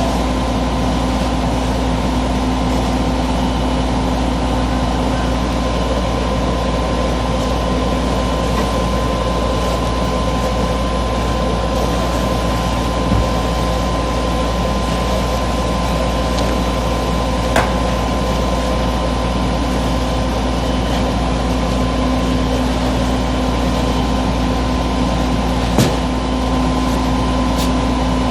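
A steady mechanical drone with a constant hum, broken by three brief sharp knocks, the loudest near the end.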